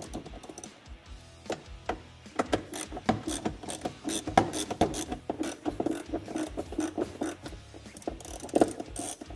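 Ratcheting screwdriver clicking in short, uneven runs as T20 screws are backed out of the plastic dash, with background music under it.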